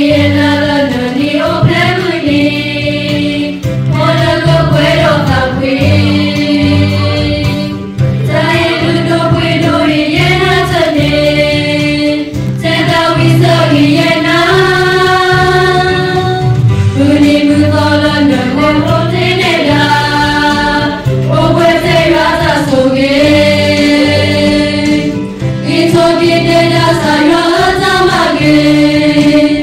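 A Christian hymn sung by a choir of voices over instrumental accompaniment with a low bass part, in long held phrases that break every four seconds or so.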